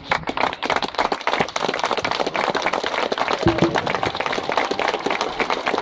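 A small crowd applauding, many hands clapping steadily.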